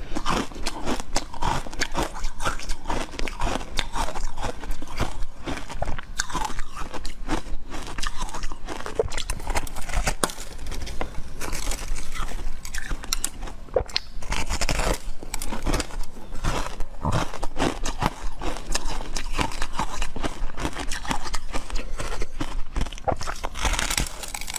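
Close-miked eating: a steady run of crunchy bites and chewing with many crackling clicks, typical of biting into frozen treats.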